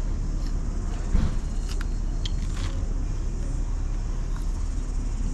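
Steady low outdoor background rumble, with a few faint short clicks and taps scattered through it.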